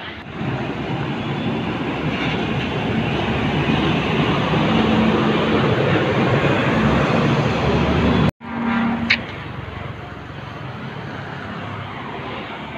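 Bus engines and traffic running in a bus terminal, a dense steady rumble that builds over the first few seconds. It cuts off abruptly about eight seconds in and comes back quieter.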